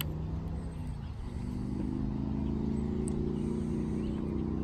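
An engine running steadily at a distance, its pitch shifting and growing a little louder about a second in.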